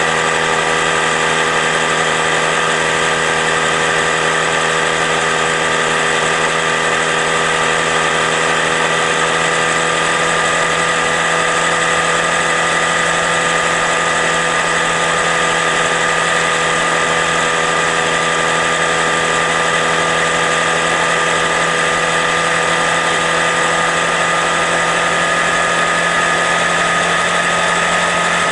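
Honda Grom's 125 cc single-cylinder engine running steadily, its pitch holding level throughout.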